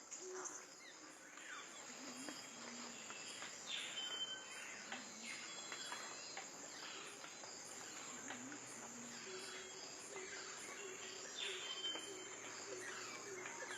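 Faint forest ambience: a steady, high-pitched insect drone under repeated short, downward-sliding bird calls. A low, steady tone joins in over the second half.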